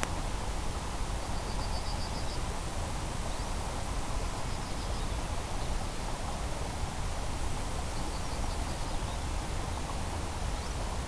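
Steady, even hiss. Faint high trilling calls come in about a second in, near the middle, and about eight seconds in.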